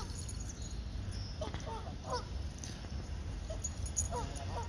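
Canada geese honking in short runs of two or three calls, about a second and a half in and again near the end: alarm or territorial calls at a dog that has been swimming in their water.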